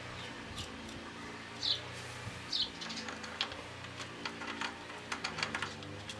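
Pigeons cooing, with two short high bird chirps in the first half. A run of light clicks and taps comes in the second half.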